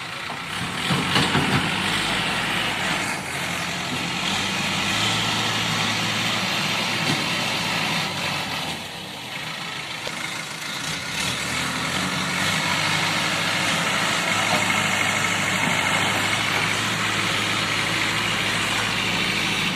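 Diesel engine of an old JCB 3D backhoe loader running steadily, dropping back briefly about halfway through and then picking up again; a few knocks about a second in.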